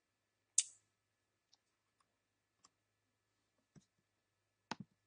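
Computer mouse clicks: one sharp click about half a second in, a few faint ticks after it, and a quick pair of clicks near the end, over a faint low hum.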